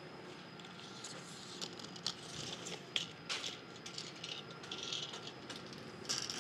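Faint, scattered clicks and scuffs of footsteps on a concrete shop floor and a steel tape measure being handled, with a brief rattle near the end as the tape is set against the wheel arch.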